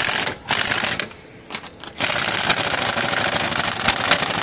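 Impact wrench hammering as it drives a steering wheel puller to press out a rusted, seized wheel hub bearing. Two short bursts come first, then a long unbroken run from about two seconds in.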